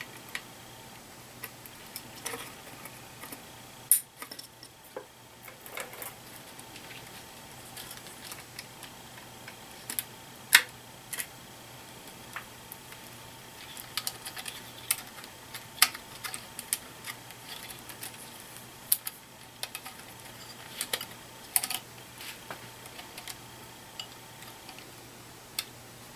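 Irregular small clicks and snaps as wire connectors are handled and pushed back into their sockets on the Stellant contrast injector head's circuit boards, a few sharper than the rest, over a faint steady hum.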